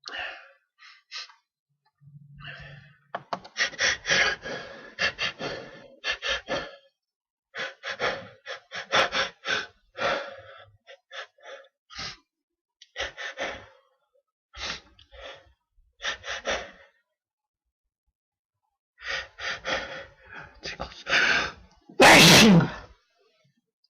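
A man's quick gasping in-breaths in runs, with short pauses, as a sneeze builds from a tickle in the nose, then one loud sneeze near the end.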